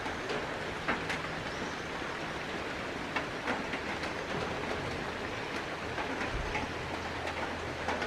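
A steady hiss with scattered light ticks, like rain pattering on a surface.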